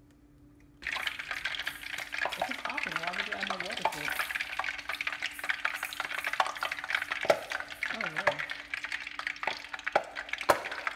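Hot cooking oil sizzling and crackling in a nonstick frying pan, starting suddenly about a second in and going on as a dense crackle of tiny pops.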